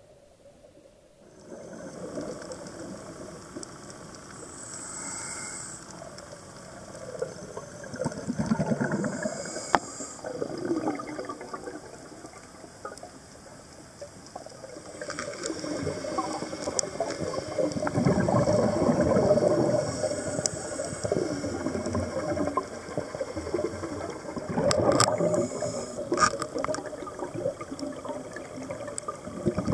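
Scuba diver's breathing heard underwater: bubbling, gurgling surges from the regulator's exhaust on each exhale every several seconds, with faint hissing and a few sharp clicks between them.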